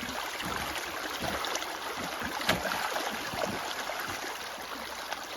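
Floodwater rushing steadily along a small ditch channel cut through snow and ice, with a few light knocks and a sharper knock about two and a half seconds in as ice is cleared from the channel.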